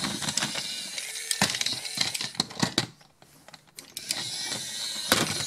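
Motorized Off Road Stripes toy truck's small electric motor and plastic gears whirring as it drives onto a plastic ramp, with sharp plastic clicks and clatters. The whirring breaks off for under a second about three seconds in, then starts again.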